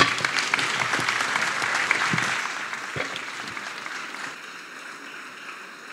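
Audience applauding at the end of a talk, breaking out at once and dying away after about four seconds.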